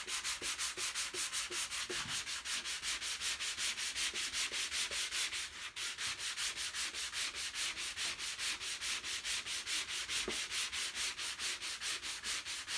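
Hand sanding of body filler on a truck dash with 80-grit sandpaper wrapped around a paint stick: a steady rasping in quick back-and-forth strokes, about four a second, with a brief break a little before the middle.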